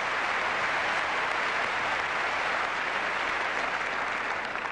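Tennis crowd applauding a cross-court winner with a steady patter of many hands clapping, beginning to die down near the end.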